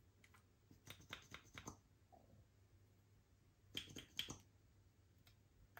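Slime being squeezed and worked by hand, giving two short runs of faint clicks and pops, one about a second in and one about four seconds in.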